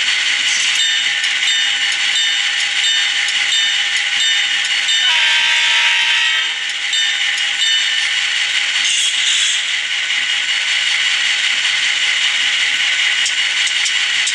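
ESU LokSound sound decoder in an HO-scale Kato SD45 playing diesel locomotive sounds through its small speaker: a steady, thin-sounding idle with a regular clatter. About five seconds in, several steady tones sound together for a second and a half, like a horn blast.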